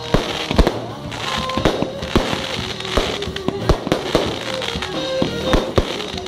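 Fireworks display: aerial shells bursting in irregular sharp bangs, about a dozen in six seconds, some close together, with crackle between them. Music plays underneath.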